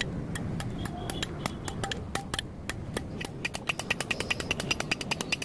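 Hammer blows on red-hot steel on an anvil while a billhook blade is forged. Scattered strikes at first, then from about three seconds in a quick, even run of ringing blows.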